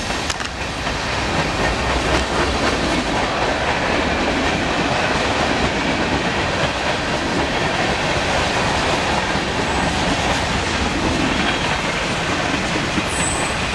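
Norfolk Southern freight train's cars, boxcars, tank cars and covered hoppers, rolling past on the rails, a loud, steady noise of steel wheels and rattling cars.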